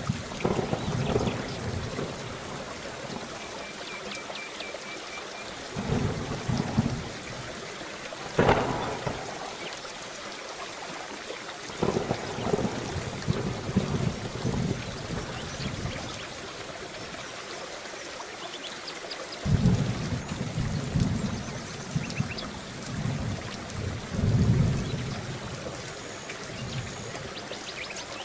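Steady rain falling, with repeated low rolls of thunder every few seconds and one sharper thunderclap about eight seconds in.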